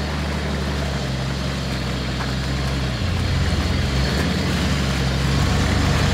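Nissan Patrol 4WD's engine running at low revs as the vehicle crawls slowly along a muddy track. Its note shifts about three seconds in, and it grows slightly louder toward the end as the vehicle comes closer.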